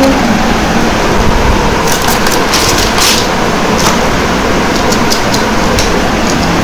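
A steady loud rushing noise, with scattered light clicks and rustles, the densest about two to three seconds in, as a cardboard earbuds box, paper and a plastic earbuds charging case are handled.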